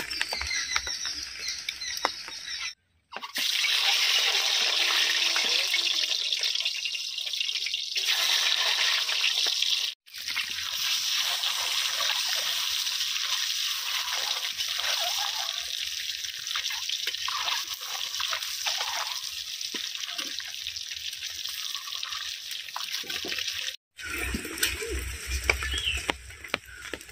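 Steady rain falling with water trickling and dripping: an even hiss that drops out abruptly for a moment three times.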